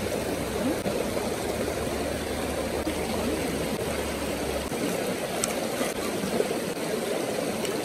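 Shallow rocky stream running over boulders: a steady rush and babble of water.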